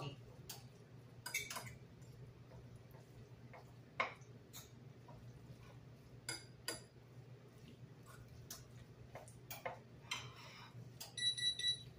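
Faint, scattered clicks and taps from hands mixing shredded chicken in barbecue sauce on a plate, over a low steady hum. A few short electronic beeps sound near the end.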